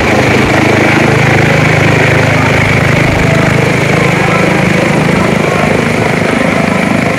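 Helicopter with a four-blade main rotor climbing away overhead at close range: a loud, steady rotor beat over the whine of its turbine engines.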